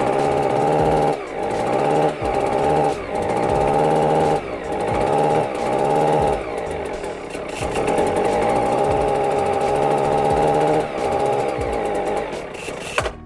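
Atlas Copco Cobra two-stroke petrol concrete breaker running on its own after a restart, a sign that the repair has worked. Its steady engine note drops briefly every second or so, and the sound cuts off suddenly near the end.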